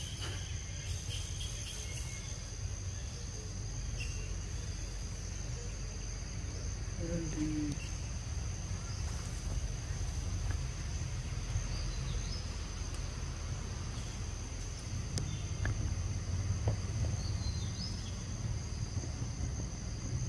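Steady insect chorus of crickets or cicadas, two unbroken high-pitched tones, over a low steady rumble, with a few faint brief chirps here and there.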